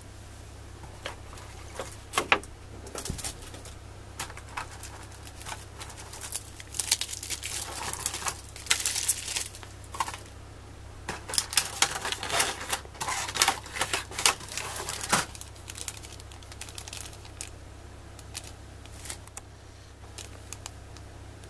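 Clear plastic blister packaging and a small plastic bag being handled: irregular clicks and taps, with a dense run of crinkling and clicking in the middle, then only scattered ticks.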